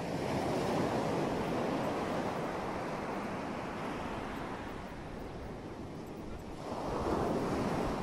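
Ocean surf: waves washing in as a steady rushing, swelling near the start and again about seven seconds in.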